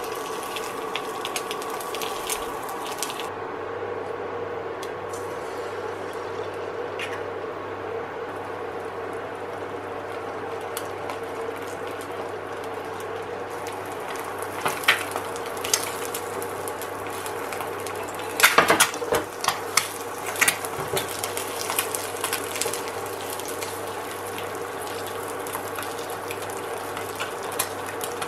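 Egg frying in a nonstick frying pan, sizzling and crackling steadily. A spatula scrapes and knocks against the pan now and then, loudest about two-thirds of the way through.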